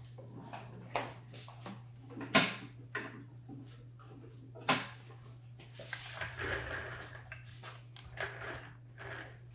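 Scattered knocks and clicks of objects being handled, with two sharp knocks about two and a half and five seconds in and a stretch of rustling near the end, over a steady low hum.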